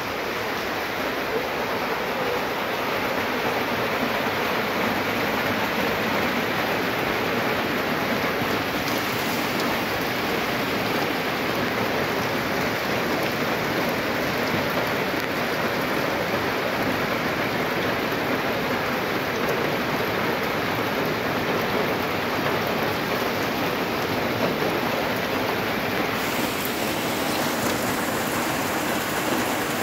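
Heavy rain from the approaching typhoon falling steadily on the ground, roofs and the flooded field, a dense even hiss with no let-up.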